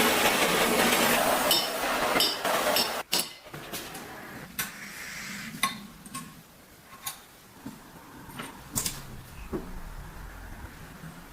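A loud, steady hiss cuts off suddenly about three seconds in. After it, metal parts click and clink sharply a few times, with small taps against one another.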